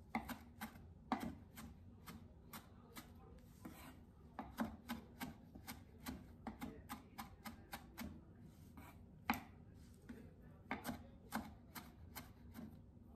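Chef's knife roughly chopping fresh parsley on a wooden cutting board: a run of short, uneven knocks of the blade on the board, about three a second.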